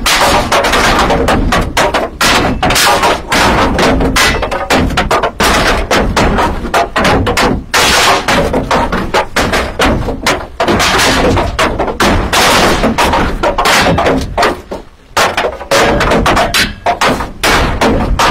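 Loud, continuous racket of rapid bangs and knocks, with a brief lull about three seconds before the end.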